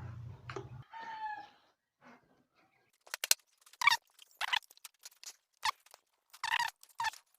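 A run of short, sharp animal calls, about a dozen in four seconds, in the background. Before them, a low hum cuts off just under a second in.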